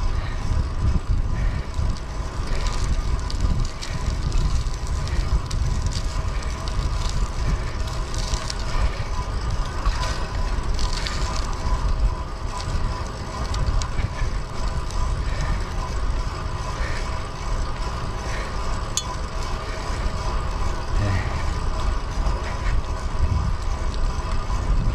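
Wind buffeting the microphone while a fixed-gear bicycle rolls on pavement, with a steady whir from the drivetrain and tyres underneath.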